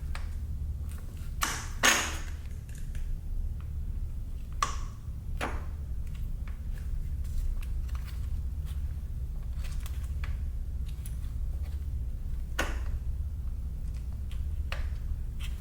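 Scattered metallic clinks and taps of hand tools and parts during work on a motorcycle engine's transmission gears, with a sharper clack about two seconds in, over a steady low hum.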